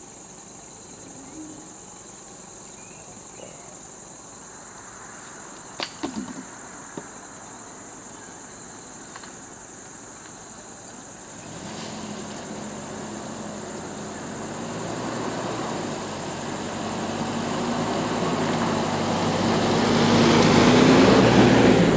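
A motor vehicle's engine comes up about halfway through and grows steadily louder as it drives closer, its pitch rising, loudest near the end. Insects keep up a steady high drone throughout, and a few sharp knocks sound about a quarter of the way in.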